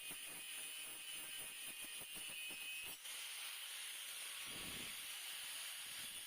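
Stick-welding (arc-welding) electrode arc hissing and crackling steadily, with a brief break about three seconds in.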